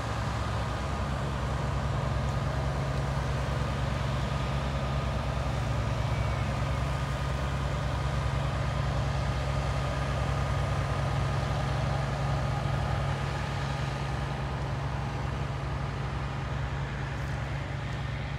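A steady low engine drone with a faint steady high tone above it, unchanging throughout.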